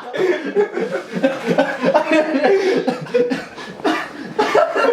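People laughing and chuckling, with bits of voice mixed in.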